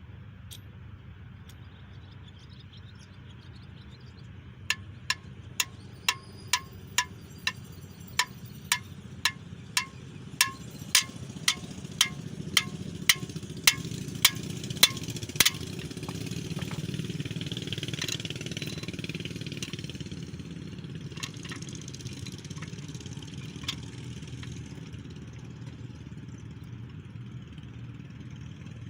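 Hammer blows on the bar of a cam bearing removal tool, driving a camshaft bearing out of a small-block Chevy 350 block: a steady run of sharp metal strikes about two a second for some ten seconds, then a couple of single blows. A low rumble swells and fades behind it.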